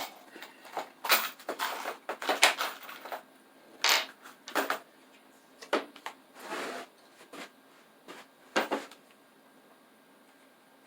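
Wooden cabinet parts being handled and fitted during assembly: irregular knocks, clicks and short scrapes, busiest in the first few seconds and dying away near the end.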